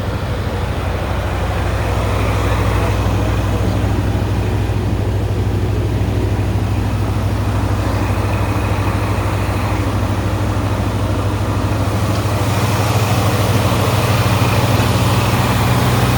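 Chevrolet C10 pickup's Jegs 5.7 L 350 V8 crate engine idling steadily through its dual exhaust, a little louder about twelve seconds in.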